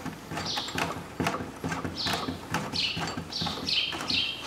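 Light, irregular metal clicks and taps of an open-end wrench and the WP fork's damper rod and spring as the rod is screwed down. From about two seconds in there is a run of short, high, falling chirps, about two a second.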